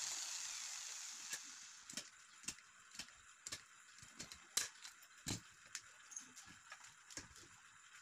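An electric drill's whine dies away, then sharp metal clicks and taps come roughly twice a second as pliers work a small aluminium part.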